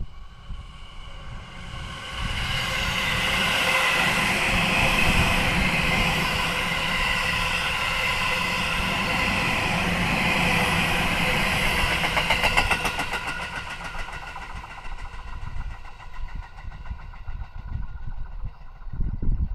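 A 255 series electric train passing: its noise swells over about two seconds, holds for about ten, then fades away. A fast run of wheel clatter over rail joints comes just past the middle.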